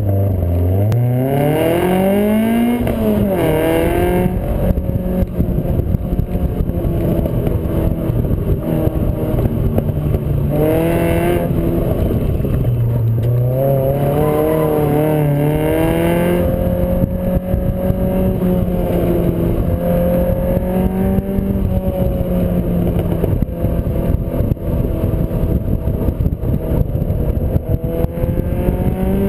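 Toyota-engined Triumph Spitfire running hard through an autocross course. The engine revs climb under full throttle and drop back again and again, with a sharp climb and fall in the first few seconds. Wind rushes through the open cockpit.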